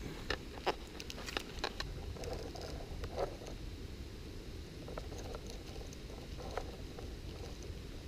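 Rustling and crackling in wet leaf litter as leaves and twigs are disturbed, with several sharp clicks in the first two seconds. After that come fainter scattered ticks over a low steady rumble.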